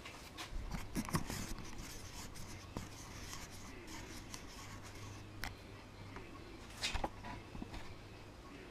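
Cotton T-shirt fabric rubbing over the camera's lens and housing as it is wiped clean, with irregular knocks and clicks from the camera being handled, loudest about a second in and again near seven seconds.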